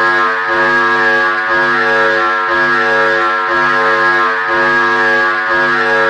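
Harsh electronic emergency-alert alarm tone, a loud buzzing sound with many overtones that pulses steadily about twice a second.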